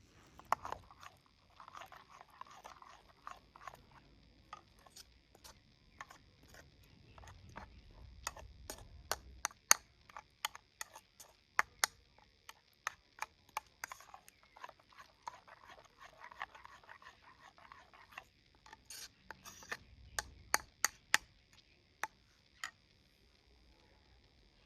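Food being prepared by hand: a long run of irregular sharp taps and clicks, like utensils against a dish, with faint rustling between them. The taps come thickest in the middle and again near the end.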